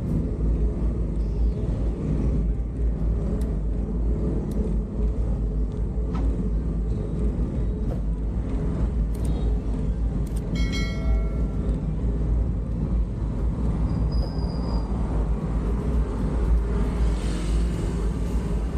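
Riding along a city road: steady traffic and engine noise with heavy wind rumble on the microphone. A short beep, like a horn, comes about ten seconds in.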